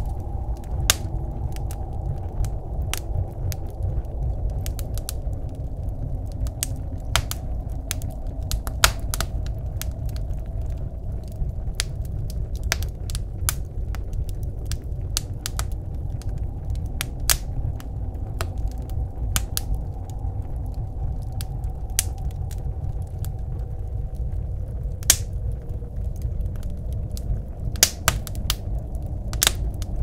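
Wood fire burning in a wood stove, crackling with many irregular sharp pops, a few of them louder, over the steady low rumble of blizzard wind.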